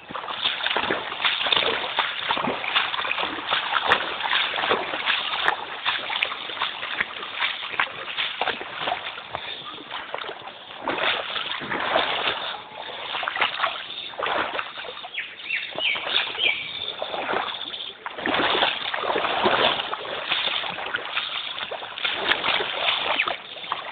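Floodwater splashing and sloshing in irregular surges, one after another.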